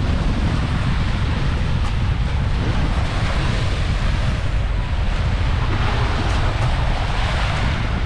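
Sea waves breaking and washing onto the shore, with strong wind rumbling on the microphone. The surf swells a little about two-thirds of the way through.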